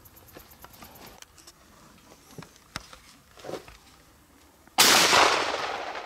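A single shotgun shot fired close by about five seconds in, a sudden sharp blast whose report dies away over about a second. Before it only faint small clicks.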